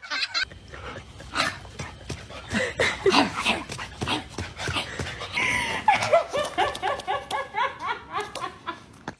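A dog whimpering and yipping in short high cries, with a quick run of them in the last few seconds.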